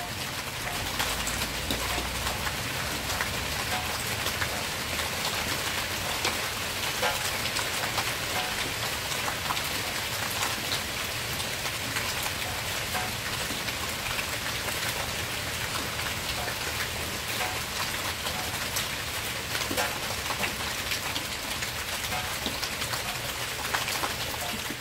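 Steady rain, a dense patter of many small drops striking a surface.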